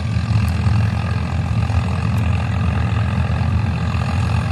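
Diesel engine of a Swaraj 855 tractor running steadily at an even speed.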